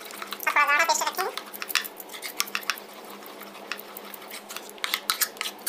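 Metal spoon stirring thick besan batter in a ceramic bowl, clicking and scraping against the bowl in quick, irregular strokes. About half a second in, a brief high-pitched voice-like sound with a wavering pitch cuts across the clicks.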